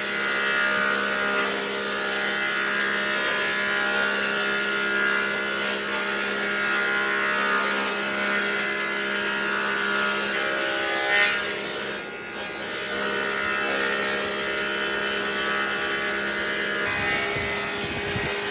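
Electric power tool motor running steadily at one pitch, with a brief dip about twelve seconds in.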